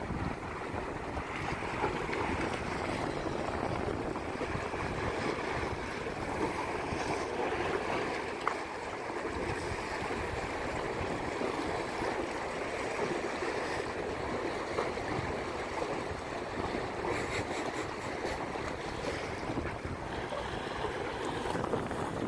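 Small lake waves washing against breakwater boulders, a steady rushing wash, with wind noise on the microphone.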